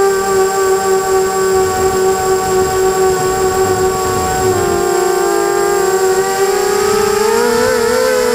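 Motors and propellers of a 250-size FPV racing quadcopter whining, heard close up from its onboard camera. The pitch holds steady for the first half, then wavers and rises toward the end as the throttle changes.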